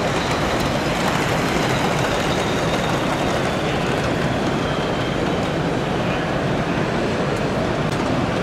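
O gauge model train coaches rolling along the track: a steady rumble mixed with the even background noise of a large exhibition hall.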